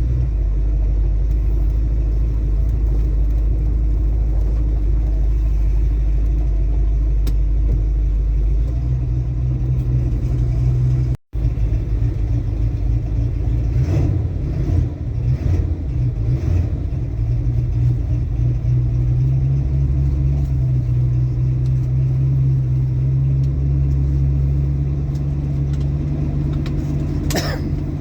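Ford Mustang Mach 1 engine and exhaust running steadily under way, its note shifting with road speed. The sound cuts out briefly about a third of the way in.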